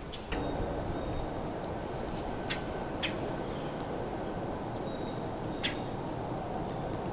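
Outdoor woodland ambience: a steady low rushing background noise with faint, short, high bird chirps and three sharp ticks.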